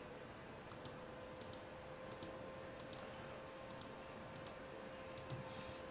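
Faint computer mouse clicks, a few at irregular intervals, over a low hiss and a thin, steady hum.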